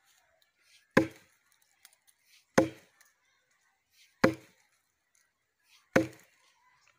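An axe chopping into a thick log: four heavy blows, about one every second and a half to two seconds.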